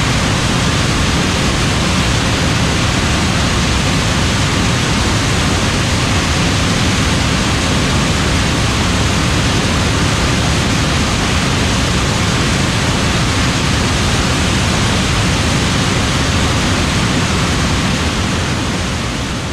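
John Deere S7 800 combine harvesting corn: a loud, steady rush of machine noise that fades down near the end.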